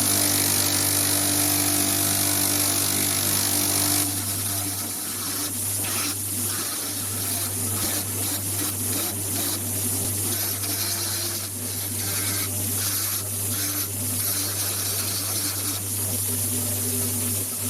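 Small electric power tool running steadily with a low hum. About four seconds in, its high hiss drops away, and irregular short rasping strokes follow over the continuing motor sound.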